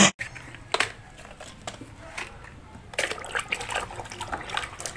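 A hand splashing and scrubbing in a plastic basin of muddy water: irregular small splashes and drips, busier from about three seconds in.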